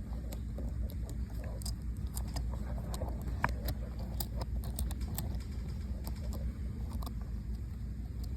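Scattered light clicks and taps of small mount hardware being handled and screwed, over a steady low rumble.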